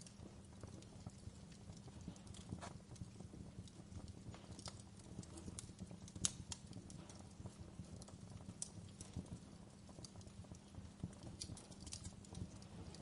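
Wood fire crackling, with irregular sharp snaps and pops over a low steady rumble; one louder pop about six seconds in.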